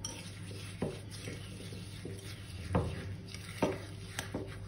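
Metal spoon stirring a thick pistachio-cream and tahini paste in a small ceramic bowl, knocking against the bowl's side about four times, over a low steady hum.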